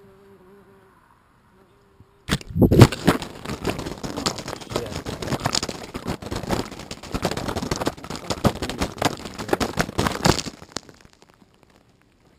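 The bare GoPro HERO2's own microphone recording its fall: a loud knock about two seconds in as it hits the ground, then about eight seconds of dense crackling and splashing as the feeder comes down on it and sugar water pours over the uncased camera, stopping a little before the end.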